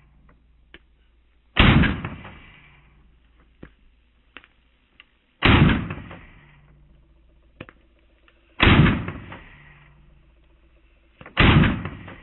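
Four single shots from an AR-15 rifle converted to a bullpup (the BR-15), fired slowly about three to four seconds apart, each trailing off over about a second.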